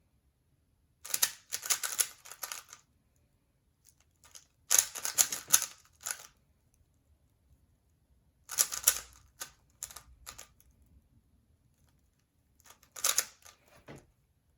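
A 3x3 Rubik's cube being turned quickly by hand: four bursts of rapid plastic clicking, each a second or two long, separated by silent pauses.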